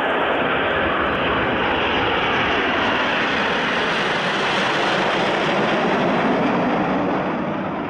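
Jet engines of the Red Arrows' BAE Hawk jets flying over in a large formation: a loud, steady rush of engine noise that is brightest a little past halfway and begins to fade near the end.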